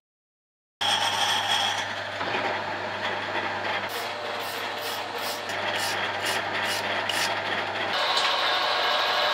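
Harrison 140 metal lathe running with a steady hum, starting about a second in. In the middle a brush is swept over the work about eight times in quick strokes, and near the end the hum drops away and a brighter, harsher machining sound takes over.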